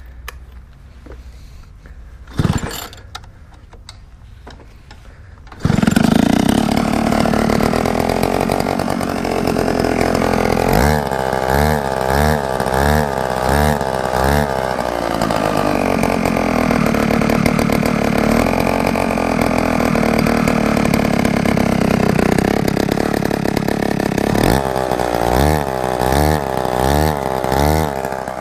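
50cc two-stroke scooter engine with an aftermarket performance exhaust, catching about six seconds in after a short knock, then running loud and steady. It is revved in a quick series of throttle blips partway through and again near the end.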